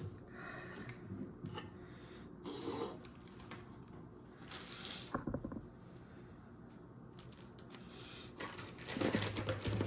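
Quiet handling sounds of camcorder accessories and their packaging being moved about and laid out: scattered light rubs, clicks and rustles, busier near the end.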